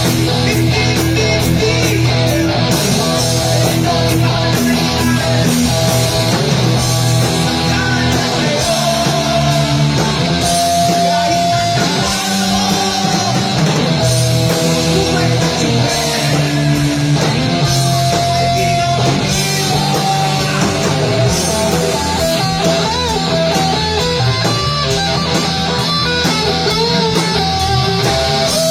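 Live rock band playing, guitar to the fore, with long held notes now and then.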